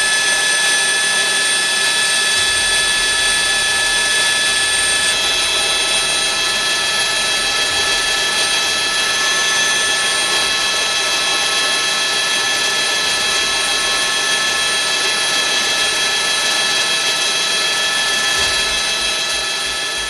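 Helicopter turbine and rotor noise heard from aboard, a steady rush with several high, constant whining tones. It begins to fade near the end.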